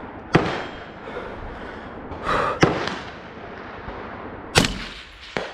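Rifle shots at long-range steel targets: three sharp shots about two seconds apart, then a fainter crack just before the end.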